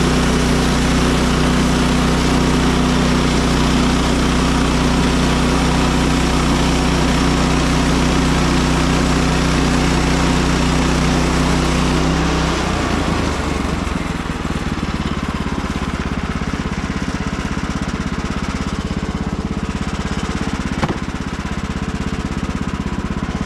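Gasoline engine of a Woodland Mills HM130 Max portable band sawmill running steadily at speed. About halfway through, its pitch drops and the note turns rougher and more uneven.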